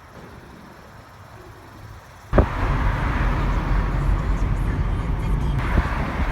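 Low background noise, then about two seconds in an abrupt jump to loud, steady outdoor noise with a strong low rumble.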